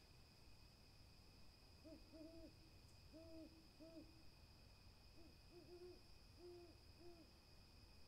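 Owl hooting faintly: two runs of short, low hoots, starting about two seconds in and again about five seconds in.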